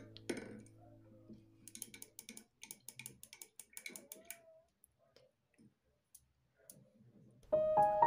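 A quick, irregular run of light clicks, then piano music starting near the end.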